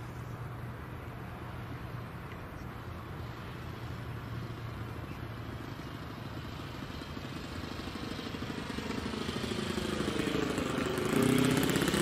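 Saito four-stroke glow engine of a large radio-controlled model plane running steadily in flight. It grows louder over the last few seconds as the plane flies in close, and it runs cleanly, 'faultless'.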